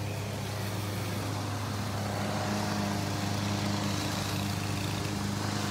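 Petrol string trimmer and lawn mower engines running steadily, a continuous engine hum from grounds crews weed whacking and mowing.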